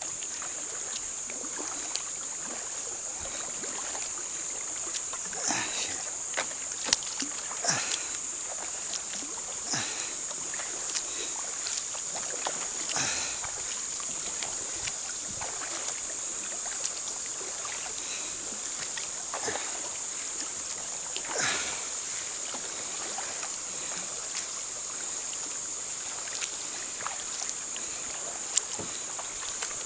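Double-bladed kayak paddle dipping and splashing into river water on alternate sides every couple of seconds, with a few sharp light knocks, over a steady high-pitched hiss.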